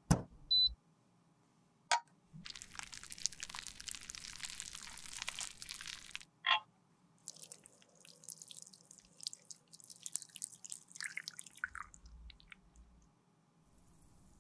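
Melted cream makeup poured in a thin stream from a small glass into the compartments of a plastic palette: a soft hiss with small drips and ticks. A sharp click and a short high beep come right at the start, and single clicks about 2 and 6.5 seconds in.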